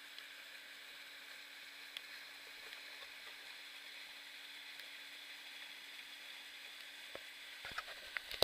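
Steady, faint hiss of a waterfall's falling water, with a few sharp clicks near the end.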